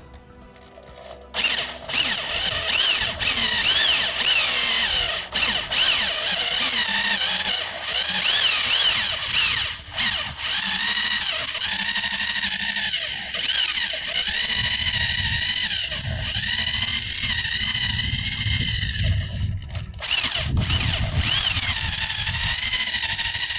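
Corded drill running under load, turning a Lug Ripper extractor that cuts into a lug nut spinning on its stud, with a wavering high whine of metal being cut. The drill starts about a second in and runs on with a few brief dips.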